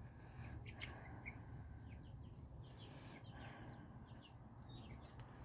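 Faint peeping of baby chicks: many short, scattered high cheeps.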